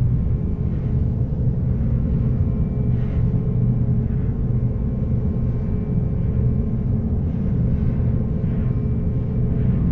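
A steady low rumbling drone with a constant hum above it, unchanging in loudness.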